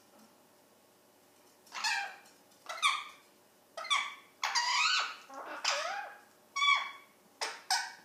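Pet ringneck parrot calling: about seven loud calls in a row, starting about two seconds in, many of them sliding down in pitch.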